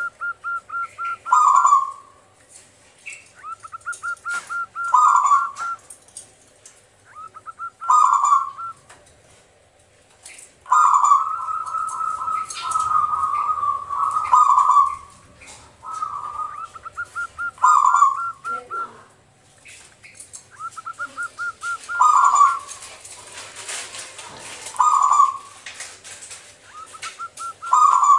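Zebra dove (perkutut) singing: about eight phrases, each a run of quick stuttering coos ending in a longer, lower coo, repeating every two to three seconds.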